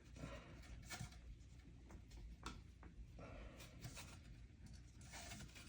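Faint handling noise of tiny screws being driven with a small screwdriver to fit mounting feet to a pinball sound board: light scrapes and a few small clicks.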